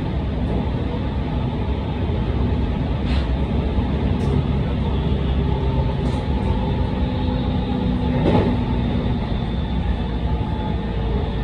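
Electric train running along the track, heard from the driver's cab: a steady rumble of wheels on rail with faint steady humming tones, and a short sharp click about three seconds in and another about eight seconds in.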